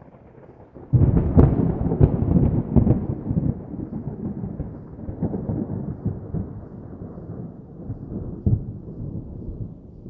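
Thunder: a loud crack about a second in, then several sharp claps over the next two seconds and a long low rumble that slowly dies away, with a last clap near the end.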